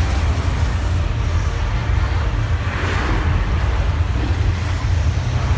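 Simulated earthquake effect on a theme-park ride set: a loud, steady deep rumble with a hiss of noise over it, swelling briefly about three seconds in.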